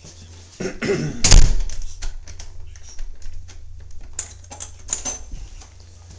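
Irregular clicks, knocks and shuffles of a handheld camera being carried through a room on foot, over a steady low hum. One loud thump comes about a second in.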